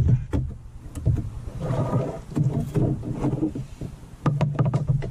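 Irregular knocks, thumps, scrapes and a few sharp clicks from someone handling tools and a power cord on a truck roof, just after cutting a flue hole.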